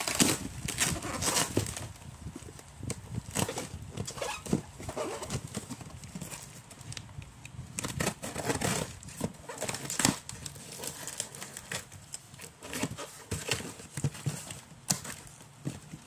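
Cardboard shipping boxes being handled and cut open with scissors: irregular knocks, scrapes and rustles of cardboard and packaging.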